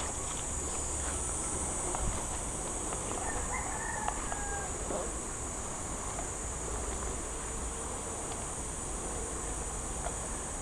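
Steady high-pitched insect chorus of crickets or cicadas, with a rooster crowing faintly about three to four seconds in.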